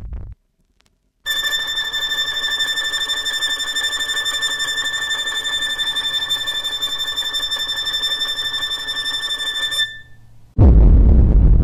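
A bell ringing rapidly and continuously, like an alarm-clock bell, starting about a second in and cutting off sharply after about eight and a half seconds. Just before the end a loud, deep rumble starts.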